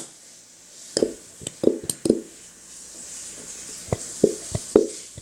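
Glue squelching out of a squeezed plastic bottle in short wet spurts, about seven, in two clusters, one about a second in and another near the end, with a farting sound.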